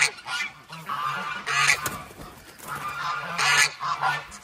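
Geese honking: several loud, separate honks spread through the moment.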